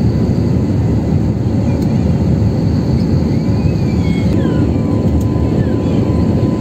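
Steady cabin noise of a jet airliner in flight: a constant, even low rumble of engines and airflow heard from a window seat.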